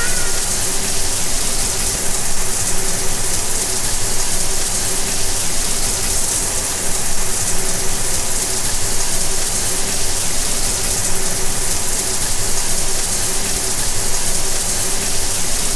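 Shower spray running, a steady rush of falling water.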